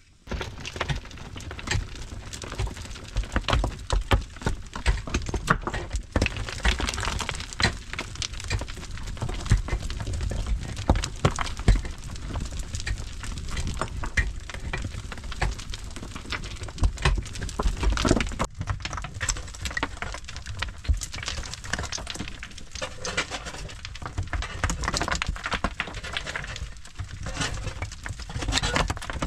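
Stones and loose gravel clattering and crunching on a rocky cave floor: a dense, uneven run of small clicks and knocks that starts suddenly and keeps on throughout.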